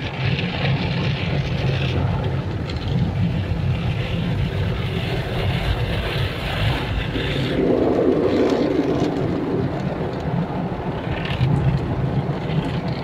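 Automatic car wash heard from inside the car: water and foam spraying against the windshield over the steady rumble of the wash machinery, with a louder rush about eight seconds in.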